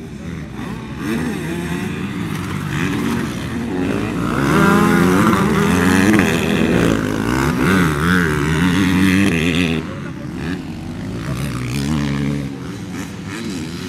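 Motocross dirt bikes running on the track, one passing close with its engine revving up and down between gears, loudest from about four to ten seconds in.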